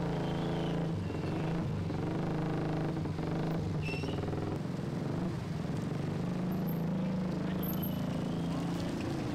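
Several small motorcycle and scooter engines running at low revs close by, a steady overlapping drone as the bikes creep forward in a slow queue.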